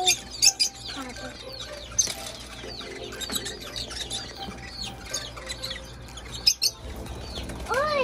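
Pet lovebirds and cockatiels chirping together in a busy stream of short, quick, high chirps. There are a few brief noisy wing flaps about half a second in and again past six seconds, and an arching, rising-then-falling whistled call at the very end.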